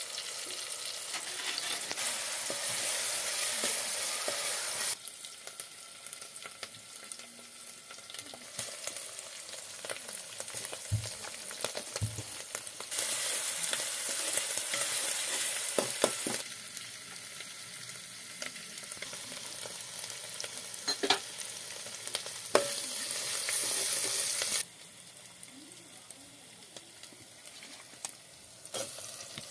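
Chopped onion and spices frying in hot oil in a metal pot, sizzling, while a metal spoon stirs and clicks against the pot. The sizzle is louder in three stretches of a few seconds each, with quieter frying and spoon clicks between them.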